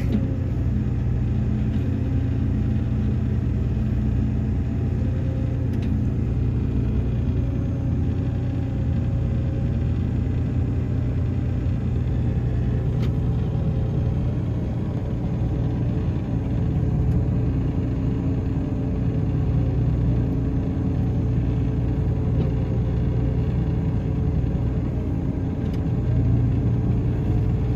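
Heavy farm vehicle engine running under steady load, a continuous low rumble with a faint wavering hum above it.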